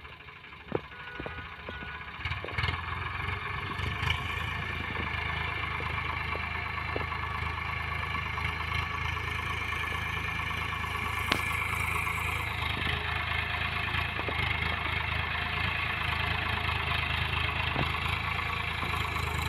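Farmtrac 45 tractor's three-cylinder diesel engine running steadily as it pulls a potato digger through the field, growing louder as the tractor comes closer. A few sharp clicks stand out in the first few seconds and once near the middle.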